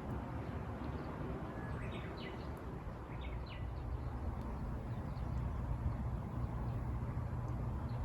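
Birds chirping, a quick run of short calls in the first half, over a steady low rumble that grows a little louder about halfway through.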